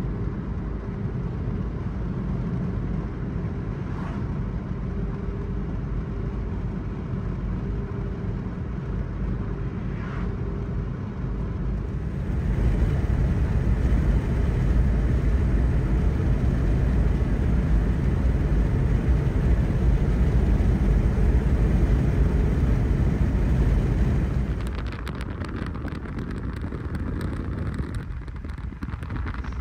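Steady low road rumble from inside a moving car. About twelve seconds in it turns into a louder, fuller rumble, which eases near the end into crackly wind buffeting on the microphone.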